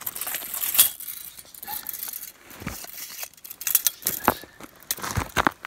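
Irregular rustling, scraping and crunching from clothing fabric brushing against the camera and hands moving in snow while a freshly caught pike is handled. The noises are short and uneven, with a denser run of them near the end.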